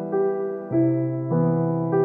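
Background music: a keyboard playing soft, sustained chords, a new chord struck a little under twice a second.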